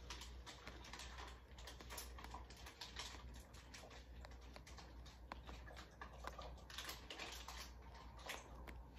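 Faint, irregular light clicks and short rustles of small items being handled, over a low steady room hum.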